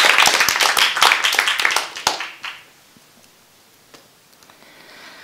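Audience applauding, the clapping dying away about two seconds in and leaving a quiet hall.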